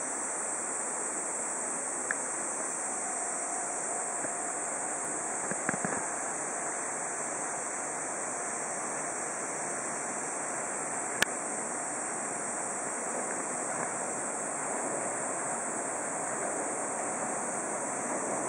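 Steady rushing of the Jōganji River flowing past the station, with a few brief sharp clicks, the loudest about eleven seconds in.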